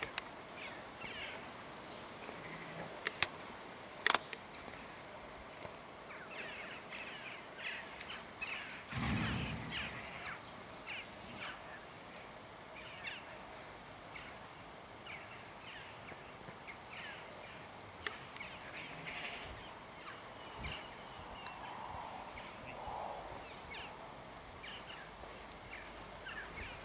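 Birds chirping and calling in an open field, with many short high chirps scattered throughout. Two sharp clicks come a few seconds in, and a brief low rumble about nine seconds in.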